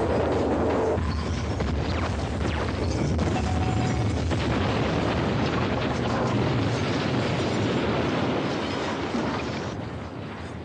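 A long, loud rumbling explosion and fire roar from a blown-up model helicopter, fading out near the end.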